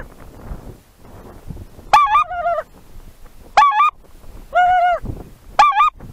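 Goose call blown to lure wild geese, giving four short honks, each breaking in pitch.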